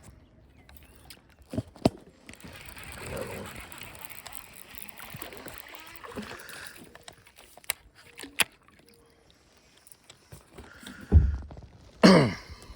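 Kayak handling sounds: scattered knocks on the hull and a few seconds of water sloshing, then a heavy thump near the end followed by a short falling sweep.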